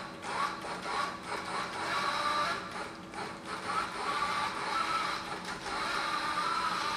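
Small tracked robot driving along a hard floor: a steady mechanical whirr of its electric drive motors and tracks, with a whine that wavers slightly in pitch.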